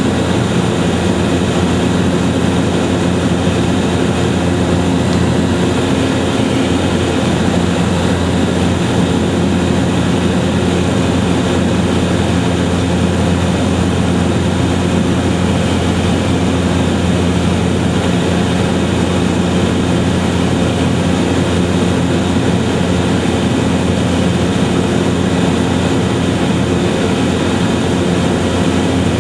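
A steady, unchanging mechanical drone with several constant humming tones under an even rush of noise.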